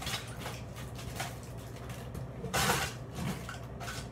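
Kitchen items being shifted on a counter to clear space, with small clicks and a short, louder clatter about two and a half seconds in, over a steady low hum.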